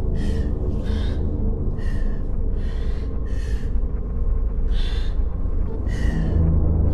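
A woman's ragged, gasping breaths, about seven short breaths at an uneven pace, over a steady low rumble.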